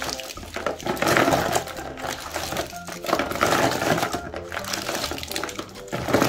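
A jumble of small plastic jelly cups rattling and clattering against each other and the plastic box as hands scoop and stir them, in surges about a second in, around three to four seconds in and again near the end.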